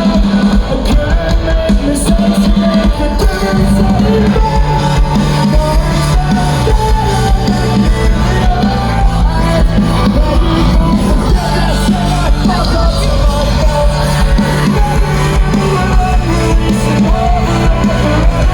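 A folk-punk band playing live, loud and steady, with a full band sound of bass, guitars and drums.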